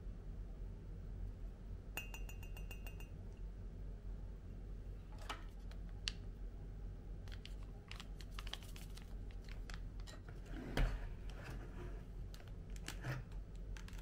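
Light clicks and taps, like small objects being handled, with one louder knock about three-quarters of the way through. A brief rapid electronic beeping comes about two seconds in. A steady low hum runs underneath.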